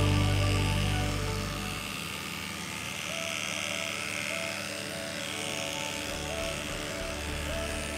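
Background music with the steady buzz of a cordless electric dog clipper shaving a dog's leg. The music is louder for the first two seconds, then drops back.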